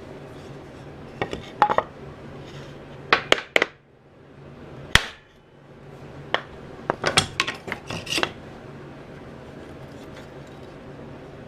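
Hand tools and wooden workpieces being handled on a workbench: several quick runs of clinks and knocks and one sharp strike in the middle, over a steady low hum.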